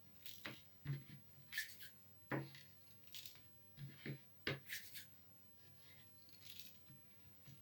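Hands working cookie dough: soft irregular taps and knocks with light rustling as dough pieces are pressed into sesame seeds and set down on a baking tray, thinning out near the end.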